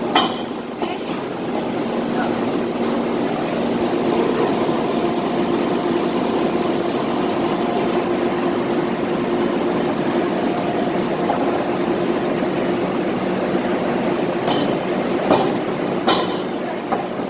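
Machinery running with a steady hum and noise, with a few sharp knocks near the end.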